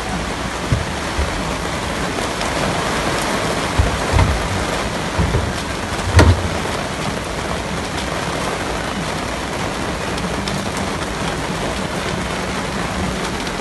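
Heavy rain falling steadily as an even hiss, with a few short dull thumps, the loudest about six seconds in.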